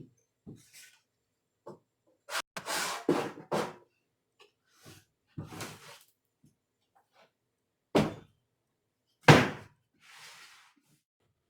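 A handful of irregular knocks and clunks from hand work with tools and sword parts at a workbench, with short scraping sounds between them; the loudest knock comes about nine seconds in.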